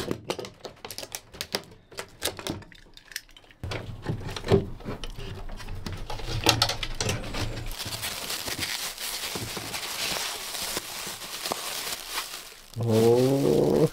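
A rapid run of small sharp clicks as metal strapping clips are prised off a wooden shipping crate. Then come knocks and scraping on the crate's wooden boards, and a long rustle of plastic wrapping being pulled back from the cast-iron stove inside. A short pitched sound comes at the very end.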